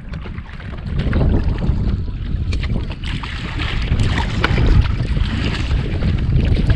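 Wind buffeting the microphone in a heavy low rumble that strengthens about a second in, with water splashing around a kayak on the lake.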